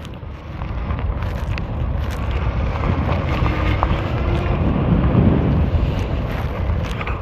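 Wind buffeting the microphone as a dual-motor fat-tire e-bike rides along, a steady low rumble that builds about a second in.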